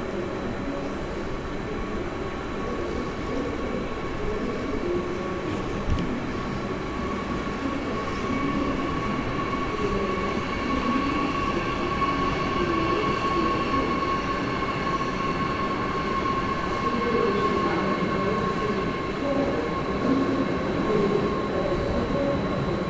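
A train at a station platform, running with a steady rumble and several high, sustained tones over it; a single knock sounds about six seconds in, and it grows slightly louder in the second half.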